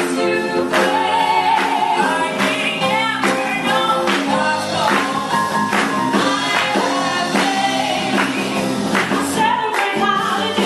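Live song: a woman sings lead into a handheld microphone over accompaniment with a steady beat.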